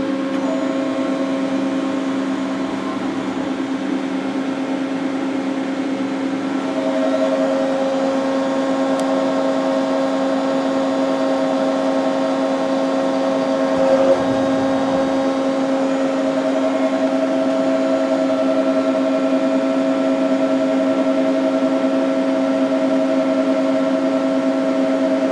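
Hyundai SKT-V5R CNC vertical turret lathe running powered up: a steady mechanical hum from its motors and pumps. A higher whine joins in about half a second in and again about six and a half seconds in, and there is a brief clunk about fourteen seconds in.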